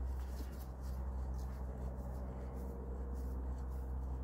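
Faint scraping and light tool handling, a spanner being worked on the pedal fittings, over a steady low rumble.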